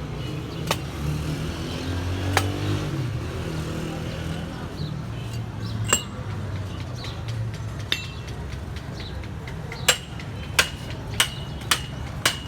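Metal struck with a hammer on iron pipe: a few scattered sharp taps, then a run of ringing strikes about two a second near the end, over a steady low hum.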